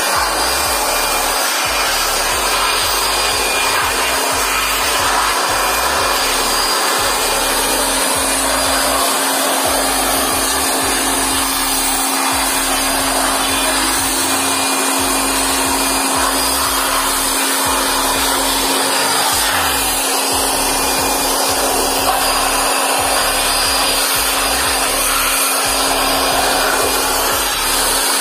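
Handheld electric air blower running continuously with a steady motor hum, blowing dust out of an opened solar inverter.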